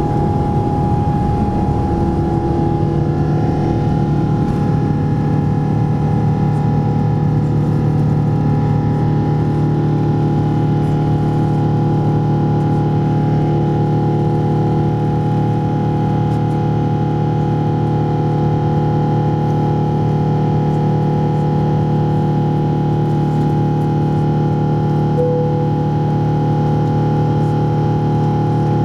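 Air France Boeing 777-200ER's GE90 engines at takeoff thrust, heard inside the cabin behind the wing: a loud, steady drone with several held fan tones. A rough runway rumble under it dies away in the first few seconds as the jet lifts off and climbs.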